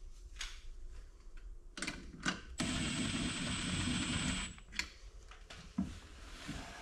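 A handheld power tool's motor runs steadily for about two seconds, spinning a shank-style lug nut onto a rear wheel stud. A few light metal clicks from lug nuts and washers being handled come before it.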